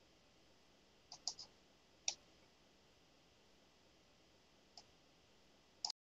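Computer mouse clicking over a quiet room: three quick clicks about a second in, a single click a second later, another near the end, then a quick pair just before the sound cuts off abruptly.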